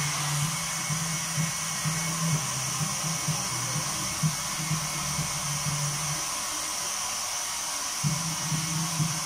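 Handheld hot-air blower running with a steady hiss, drying freshly printed water-based ink on a screen-printed shirt. A low wavering background tone drops out about six seconds in and returns about two seconds later.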